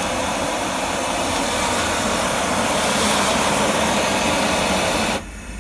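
100,000 BTU high-pressure propane wok burner running at full flame, a steady loud rush of burning gas. About five seconds in it is turned down to idle and the sound drops suddenly to a much softer rush.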